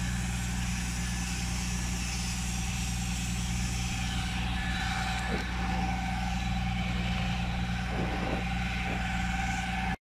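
An engine running steadily with a constant low hum and a thin steady whine above it. A few faint knocks come in the second half, and the sound cuts off suddenly at the end.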